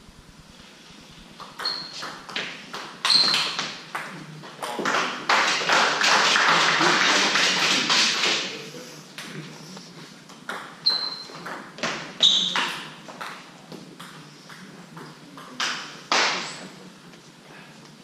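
Table tennis ball clicking back and forth off the bats and table in a short rally, with a few ringing pings, then about four seconds of applause from the spectators. Near the middle and end come further short runs of ball hits.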